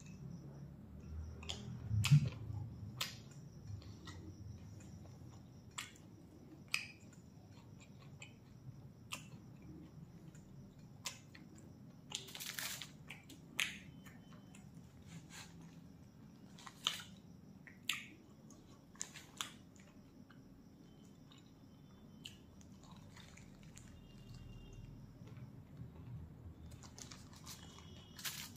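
Close-miked mouth sounds of a man eating a large stuffed wrap roll: chewing with scattered sharp lip smacks and clicks, and a louder thump about two seconds in.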